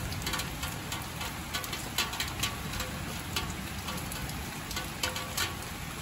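Rain falling steadily, with many irregular louder drops striking close by.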